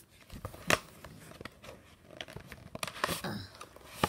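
Cardboard packaging and a boxed phone case being handled: scattered sharp clicks and taps with a couple of short scraping rustles as the box is pulled out of its cardboard mailer.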